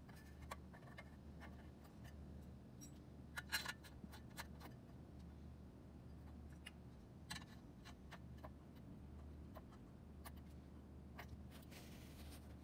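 Near silence: a low steady hum with a few faint, scattered clicks and taps.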